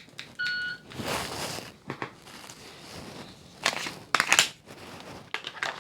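A shot timer gives a short electronic start beep. Then comes the rustle and sharp clicks of a dry-fire run with a Glock 45 pistol: the draw from the holster, trigger presses and gun handling.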